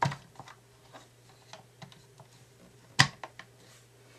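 Plastic parts of a toy remote-control spy car being handled and set down: scattered light clicks, with one sharp knock about three seconds in.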